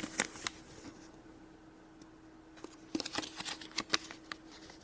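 Hands handling a paper flyer and small plastic toy pieces: light rustles and clicks near the start, then a cluster of small taps and clicks about three to four seconds in, over a faint steady hum.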